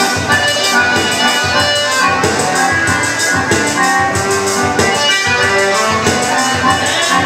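Live dance-band music led by accordion, with a steady beat.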